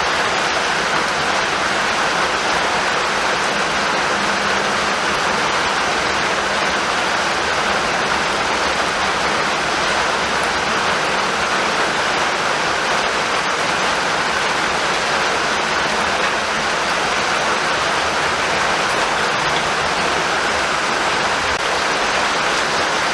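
Steady rainfall, a dense, even hiss of rain with no thunder and no change in strength.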